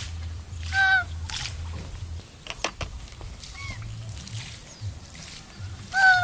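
Domestic goose honking: a short, loud honk about a second in, a fainter one midway, and another loud honk near the end.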